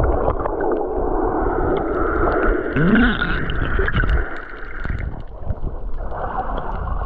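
Muffled underwater sound from a camera held beneath the surface: water churning and gurgling around the microphone, with a brief rising muffled tone about three seconds in.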